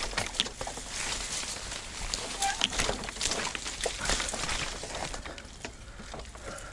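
Leaves and brush rustling and swishing against a mountain bike and its action camera as it pushes along a narrow, overgrown dirt trail, with many small clicks and crunches from the tyres on dirt and stones. The rustling is busiest early and eases near the end as the trail opens up.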